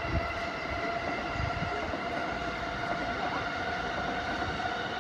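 Electric express train running on the tracks below: a steady whine of several tones from its traction motors over a low rumble.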